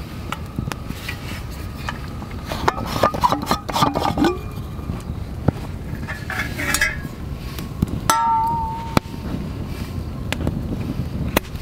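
A stainless steel canteen being handled: its cap, body and wire handle clink and scrape, with short metallic rings in clusters about three to four seconds in and again around seven to nine seconds, over a steady low rushing background.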